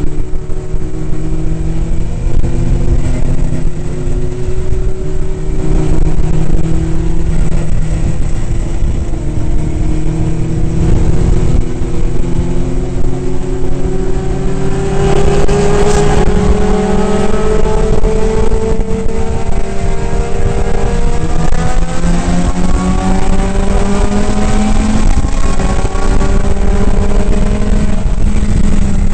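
Datsun 2000 roadster's 2.0-litre four-cylinder race engine running hard, heard from its open cockpit. Its note climbs steadily through a long pull about halfway through, then drops and rises again with gear changes, over a steady hiss.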